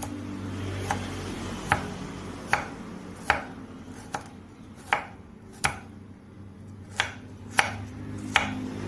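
Knife chopping pieces of red ginger, kencur and turmeric into small bits, with about a dozen sharp, evenly spaced cuts, one a little under every second.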